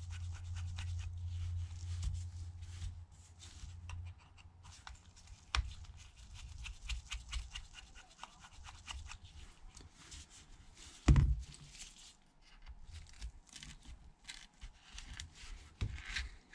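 Faint small ticks and scrapes of a precision pentalobe screwdriver working out the bottom screws of an iPhone SE (2nd generation), with one dull thump about eleven seconds in.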